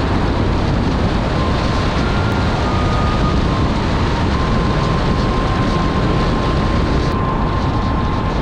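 Vehicle driving, a loud, steady rumble and rush of road and wind noise with wind buffeting the microphone.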